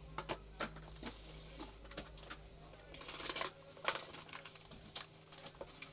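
Hands opening a courier parcel: scattered sharp clicks and short scrapes of packaging being handled and cut, with a longer rustling scrape about three seconds in.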